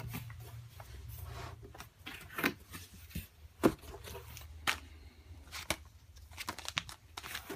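Unboxing handling noise: cardboard box flaps and packed items being moved, and a clear plastic bag crinkling. Scattered light knocks and rustles come about once a second.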